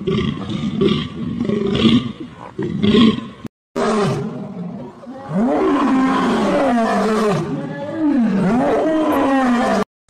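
Short repeated animal calls, then a brief silence, then a lion roaring in long calls that rise and fall in pitch, the strongest about five and eight seconds in.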